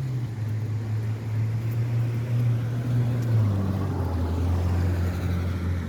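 A vehicle engine runs with a steady low hum, which drops in pitch about three and a half seconds in.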